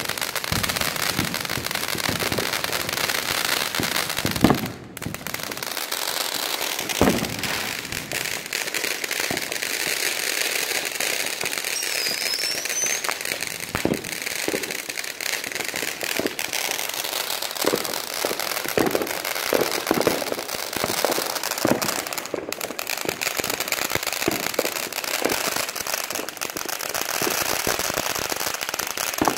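Consumer fireworks going off: a continuous crackling hiss of fountain fireworks with many sharp pops and bangs from firecrackers, the loudest about four seconds in and again about seven seconds in.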